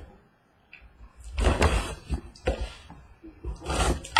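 Cardboard trading-card boxes being handled in their case: scrapes and knocks, in about three bouts, with the last near the end.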